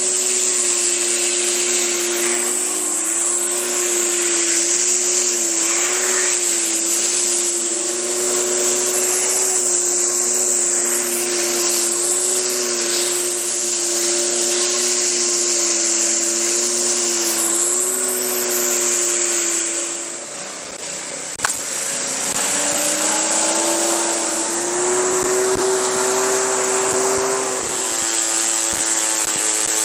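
Westinghouse WPX3400 gas pressure washer, its 212cc four-stroke engine running steadily under load over the hiss of the high-pressure water spray. About twenty seconds in the pitch and level sag briefly, then climb back up.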